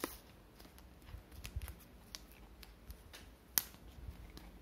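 Paper wrapping on a roll of thermal label stickers being torn open by its pull tab and handled. Scattered crisp paper crackles and clicks, the sharpest about three and a half seconds in, with a few soft low bumps.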